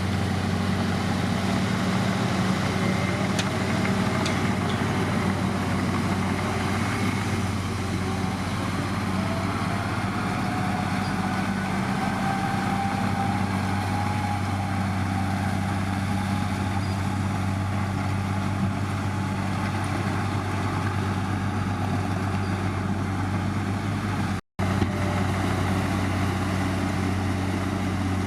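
Heavy diesel engine of earthmoving machinery running steadily, with a faint wavering whine above it in the middle. The sound cuts out for an instant near the end.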